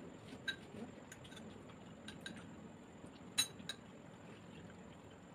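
Light clinks of cutlery against dishes at the table, a few scattered taps with the sharpest about three and a half seconds in.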